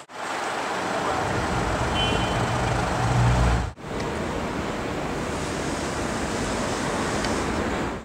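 Street traffic noise: a steady wash of road sound with a low vehicle rumble that swells about three seconds in. The sound drops out abruptly just before four seconds, then the traffic noise carries on.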